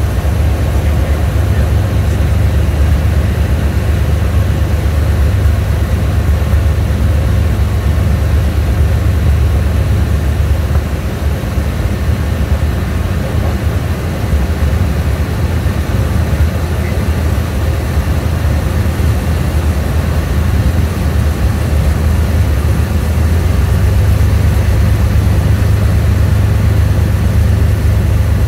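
Small single-engine propeller airplane's engine and propeller droning steadily in the cockpit on final approach to a grass strip. The drone eases slightly about ten seconds in and grows a little louder again in the last few seconds.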